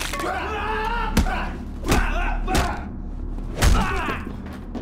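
Film fight sound effects: several heavy punches and body impacts landing, the loudest about three and a half seconds in, with men grunting and yelling between the hits.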